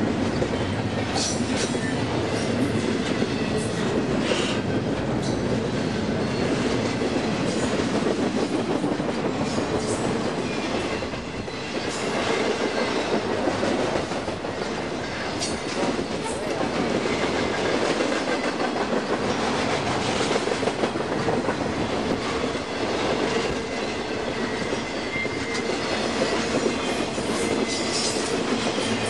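Long intermodal freight train's double-stack and trailer cars rolling past close by: a steady rumble of steel wheels on rail, with repeated clicks as the wheels cross rail joints.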